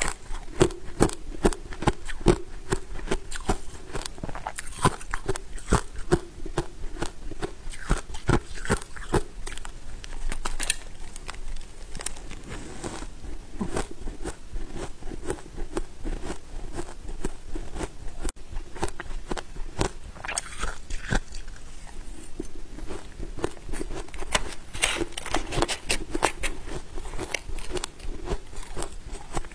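Close-miked biting and chewing of powdery freezer frost: a dense run of fine, crackling crunches. The bites are thickest in the first ten seconds and again about twenty-five seconds in.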